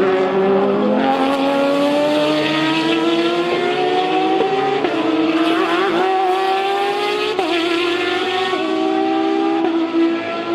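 A GTE race car's engine under full acceleration, its pitch climbing steadily and then dropping sharply at each upshift, about five quick upshifts from roughly the middle on.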